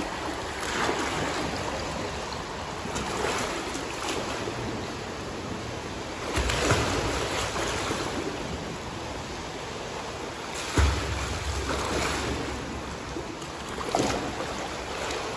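Pool water splashing as a swimmer thrashes his arms through the surface, in surges every few seconds. Two dull thumps land about six and a half and eleven seconds in, the second the loudest moment.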